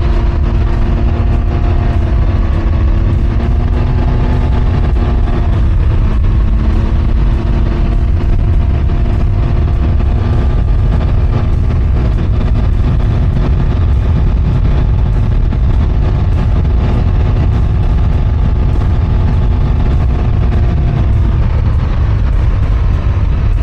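On-board sound of a ridden open road vehicle at a steady cruise. The engine holds a nearly even note that shifts slightly a few times, under a heavy wind rumble on the rider's microphone.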